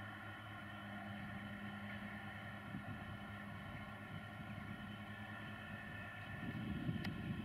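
Two John Deere tractors' diesel engines running under load in a field, one ploughing and one drilling, as a steady distant drone. A louder, rougher low rumble joins near the end.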